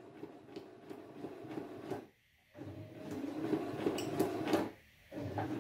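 Domestic electric sewing machine running unthreaded, its needle punching through a paper sheet in a fast, even patter. It stops for about half a second roughly two seconds in, runs again a little louder, stops once more near the end and starts again.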